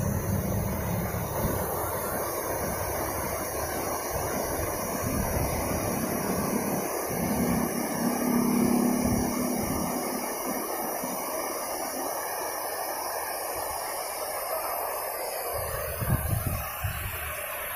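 Steady rush of river water pouring over a low weir, mixed with motor traffic rumbling past on the bridge; a passing engine hums louder about seven to ten seconds in.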